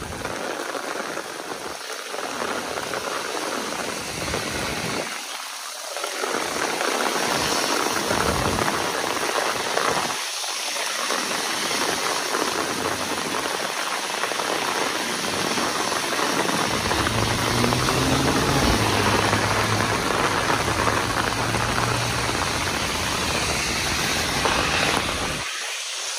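Heavy downpour: a steady hiss of rain falling and splashing. A low hum joins about two-thirds of the way through.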